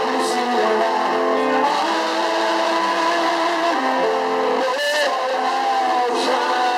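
Live band playing loud, held chords that change every second or so, with a distorted, engine-like tone and little bass.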